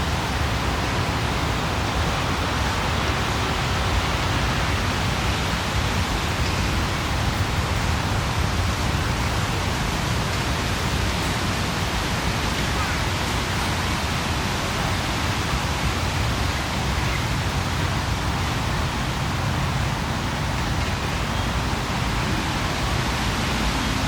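Steady outdoor city ambience: an even, unbroken wash of noise with a low rumble underneath and no distinct events.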